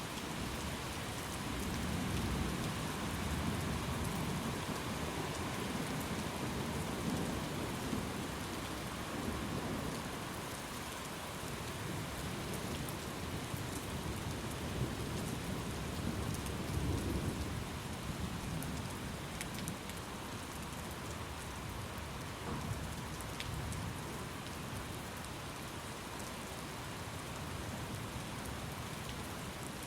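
Thunderstorm: steady rain hissing, with low rolling thunder rumbling through the first ten seconds and swelling again a little past the middle.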